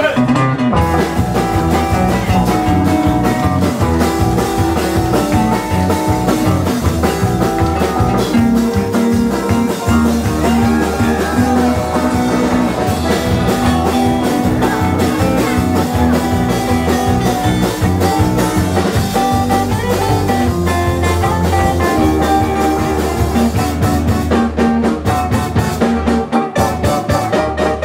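Live band playing a country-swing rock-and-roll number on acoustic guitar, hollow-body electric guitar, electric bass and drums, with a steady beat.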